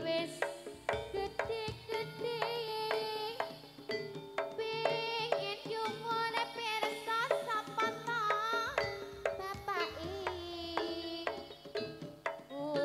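Jaranan gamelan music played live: steady drumming and struck percussion under a wavering high melody line.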